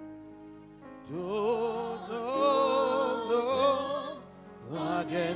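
Gospel worship music: sustained chords, with singing that enters about a second in and holds long, wavering notes with vibrato, pausing briefly before coming back near the end.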